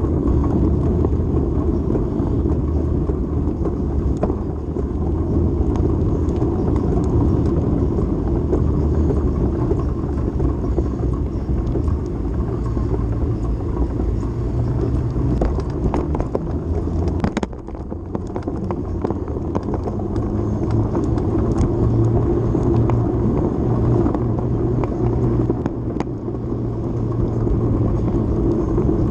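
Steady wind rush and road rumble picked up by a handlebar-mounted action camera on a moving ride, with a low hum; it goes briefly quieter a little past halfway.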